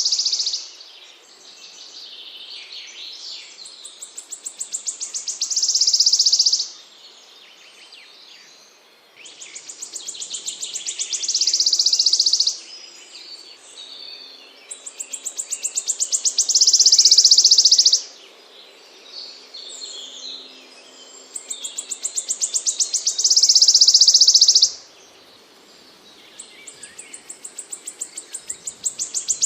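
A small songbird singing, recorded for bird-song training: the same high phrase repeats about every six seconds, a quick run of notes growing louder that ends in a dense buzzy trill, cut off abruptly.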